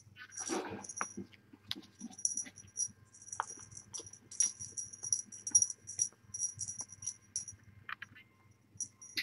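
Kittens playing right at the microphone: light, rapid jingling in short clusters, like a small bell toy, with scattered soft clicks and a brief kitten mew about half a second in.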